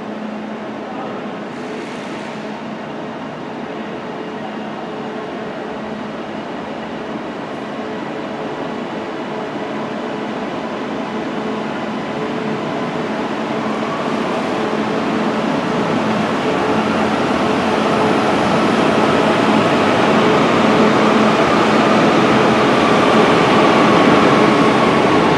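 Northern Class 331 electric multiple unit running into the platform, its running noise and steady motor tones growing louder as it approaches and draws alongside.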